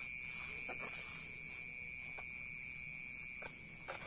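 Steady high-pitched chirring of night insects, with a few faint scratches of a hand pressing and spreading potting mix in a plastic pot.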